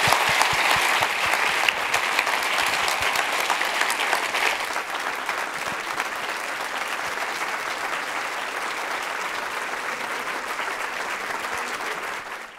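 Large audience applauding: dense, sustained clapping, loudest at first and easing off after about five seconds, then going on steadily until it cuts off suddenly.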